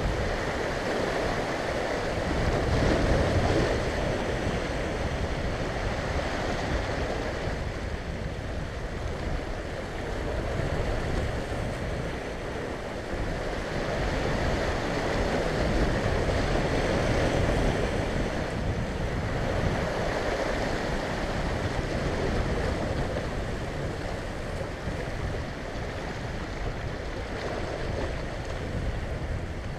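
Sea surf washing and breaking over a rocky shore close by, a steady rushing that swells and eases every few seconds.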